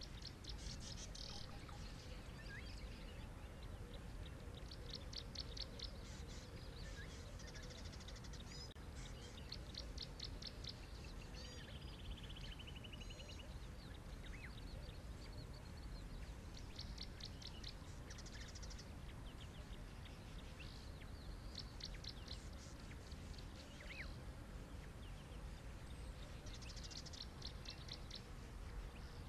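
Wild birds calling in the bush: repeated high, rapid trills and short chirps every few seconds, with one descending trill near the middle, over a steady low background rumble.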